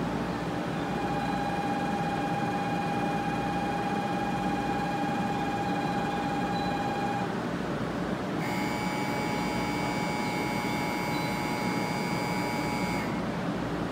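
Steady hum from a stationary 500 series Shinkansen at the platform. Over it come two long, steady electronic signal tones before departure: the first from about a second in to about seven seconds, the second higher and brighter from about eight and a half seconds to near the end.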